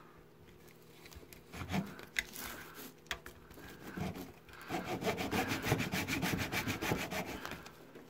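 Small hand saw cutting through the hard plastic case of an AC-DC power adapter. A few slow strokes come first, then rapid, even back-and-forth sawing from about halfway through.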